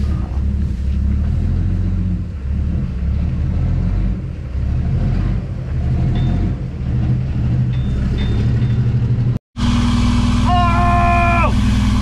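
Mack truck's 500 hp Cummins ISX inline-six diesel running at low revs as the truck creeps forward, its straight-piped exhaust rumbling with small swells. Near the end, after a cut, the engine is heard steadier from inside the cab, with a drawn-out voice call over it.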